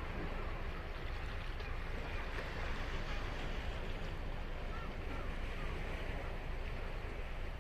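Ocean surf washing steadily on the beach, an unbroken rushing wash with a heavy low rumble. A few faint short chirps sound over it.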